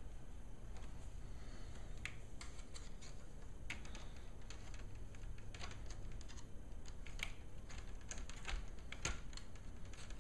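Plastic retaining clips of a laptop screen bezel clicking and snapping loose as a small flathead screwdriver pries around the bezel's edge: irregular light clicks, a few at a time, over a faint low hum.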